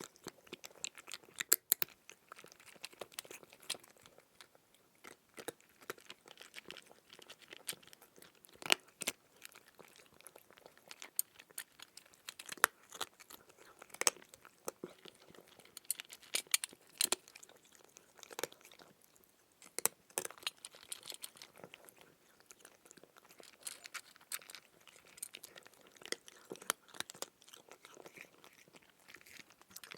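Crunchy food being chewed: irregular crunches and crackles, close to the microphone.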